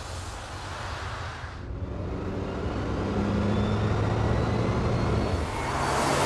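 Audi e-tron Spyder concept roadster driving toward and past, with a low steady hum that grows louder and peaks as the car passes close, about six seconds in.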